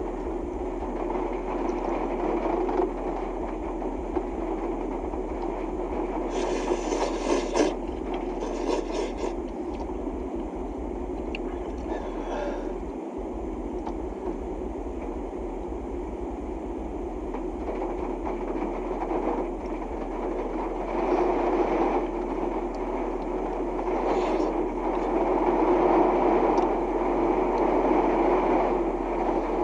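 Honda N-VAN driving, heard from inside the cabin: steady road and engine noise that grows louder in the last third, with two short hissing bursts about seven and nine seconds in.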